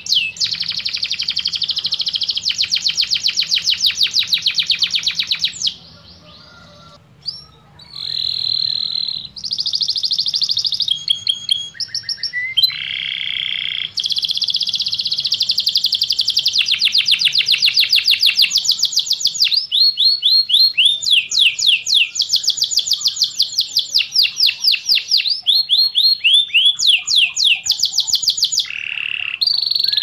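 Domestic canary (Serinus canaria) singing: long, rapid high trills of repeated notes in changing phrases, with a short lull about six seconds in.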